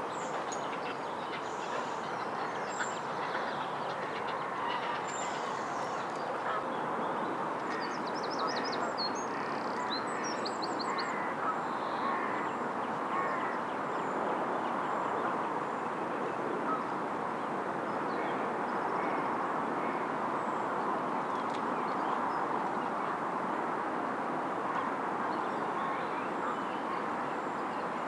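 Ducks quacking on a lake, with small birds chirping and a quick high trill of birdsong about eight to eleven seconds in, over a steady background hiss.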